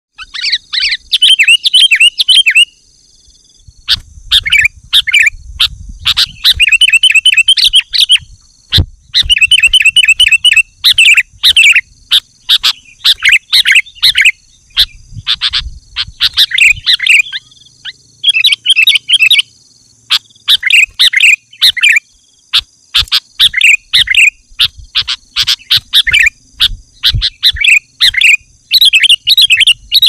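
Sooty-headed bulbul in full song, giving loud, bubbly chattering phrases one after another with short gaps, the persistent song used to call in wild bulbuls. A faint steady high whine runs underneath.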